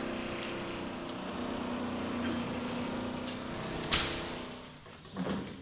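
Pneumatic air hammer with a panel-cutting bit running steadily as it slices down the middle of a steel car quarter panel, the cut metal curling up out of the slit. A sharp metallic crack comes about four seconds in, then the tool goes quiet and starts again briefly near the end.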